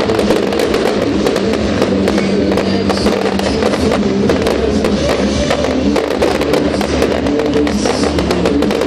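Music with held notes plays loudly throughout, with frequent sharp crackles and bangs from aerial fireworks bursting over it.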